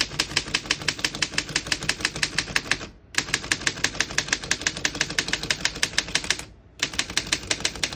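1916 Underwood No.4 manual typewriter being typed on, a rapid, even run of keystrokes as the typebars strike the platen, broken by two short pauses about three and six and a half seconds in. The typist is working along the line toward the right margin.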